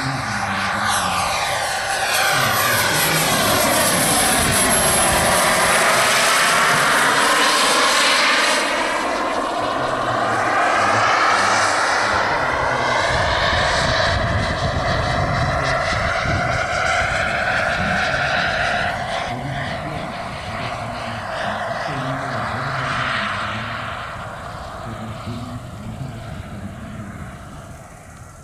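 Jet turbine of a giant-scale RC Horten Ho 229 flying-wing model flying past, a loud jet rush with a faint high turbine whine in the first few seconds. It is loudest in the first half and fades away toward the end.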